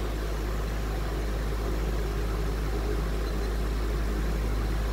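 A 1960s Emerson Electric 20-inch box fan with a PSC motor running steadily on high speed: an even rush of moving air over a low, constant hum, pretty quiet running.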